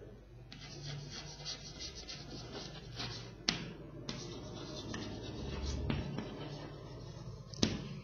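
Chalk writing on a blackboard: scratchy strokes with a few sharp taps where the chalk meets the board.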